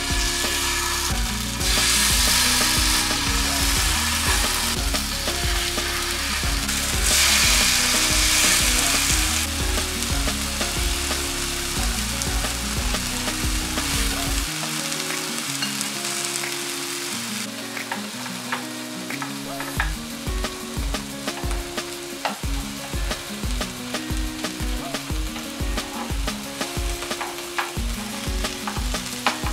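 Marinated chicken pieces sizzling on a hot grill pan, the sizzle flaring loudest twice in the first ten seconds as fresh pieces go down, with light clicks of metal tongs. Background music plays underneath.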